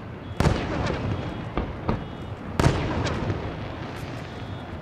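Aerial fireworks shells exploding: two loud bangs about two seconds apart, each trailing off slowly, with several smaller pops and cracks in between.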